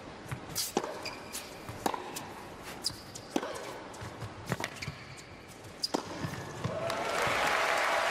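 Tennis ball struck back and forth with rackets in a rally, a sharp strike roughly every second. About seven seconds in, the point ends and the arena crowd breaks into applause.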